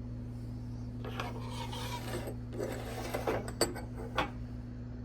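Old steel wrenches being handled and set down: a scraping rub about a second in, then several light metal clinks in the second half, over a steady low hum.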